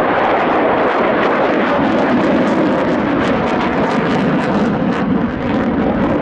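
Military fighter jets flying low overhead, their jet engine noise loud and steady.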